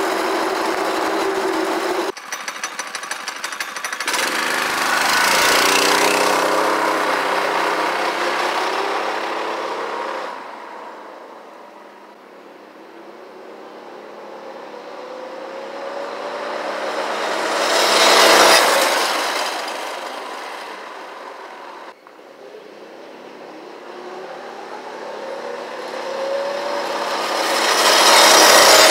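Go-kart's small engine running at speed, heard up close at first, then driving off and coming back past twice, each pass swelling to a loud peak and fading away.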